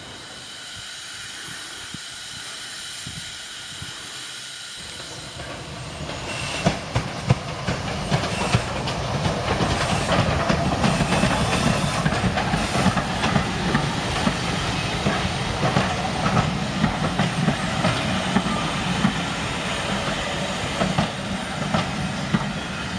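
GER J15 0-6-0 steam locomotive running through the station hauling coaches, faint at first and growing louder about five seconds in as it comes past. Then the coaches rumble by, their wheels clicking over the rail joints.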